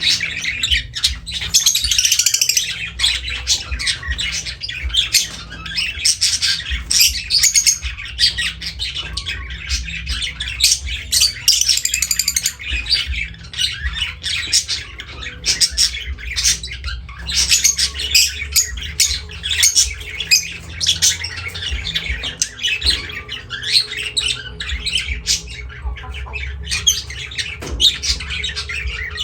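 Pet lovebirds chattering and squawking nonstop in rapid, shrill chirps and screeches, over a low steady hum.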